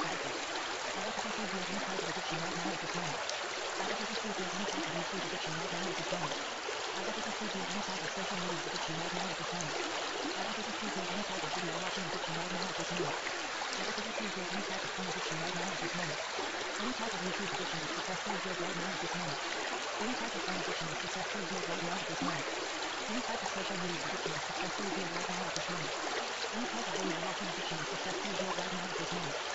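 Steady, unbroken rushing noise like running water, used as the masking track of a subliminal recording. A faint, low, wavering murmur comes and goes beneath it every second or two, typical of spoken affirmations buried under the masking sound.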